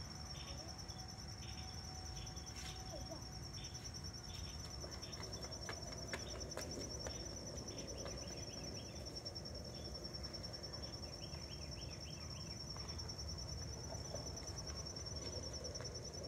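Insects calling: a steady, high, fast-pulsing trill, with short chirps repeating at irregular intervals below it, over a low background rumble.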